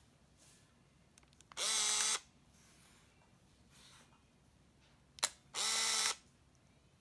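Pentax PC-3000 compact 35mm film camera firing twice. Each press of the shutter release is followed by a short whir of its motorized film advance, about a second and a half in and again near the end. A sharp shutter click comes just before the second whir.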